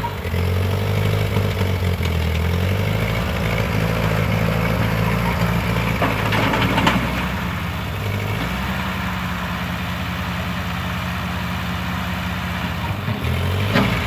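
Old farm tractor's engine running steadily while the tractor drives through brush, its engine speed shifting a few times. A few short crackles come about six to seven seconds in.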